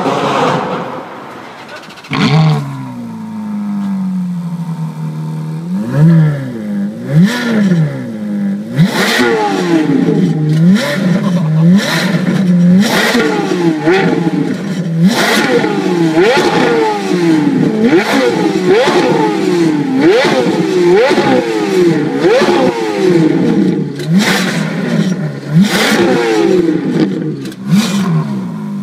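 A Ferrari 458 Spider's V8 pulling away and fading in the first couple of seconds. Then a stationary Ferrari F430's V8 is revved over and over: quick rising and falling blips about one a second, with sharp cracks between some of them.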